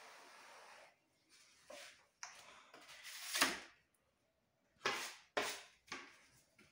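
Metal putty knife scraping across a puttied wall in a series of short strokes, each starting sharply and tailing off, the loudest about halfway through.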